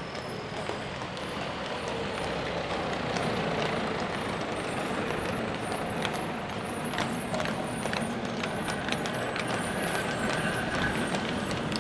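Horse-drawn tramcars approaching: hooves clopping on the road and tram wheels rumbling along the rails over steady road-traffic noise, with the hoof strikes coming through more sharply in the second half.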